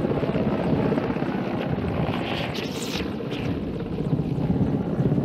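Military transport helicopter hovering low overhead with a load slung beneath it on a cable, its rotor chop beating steadily.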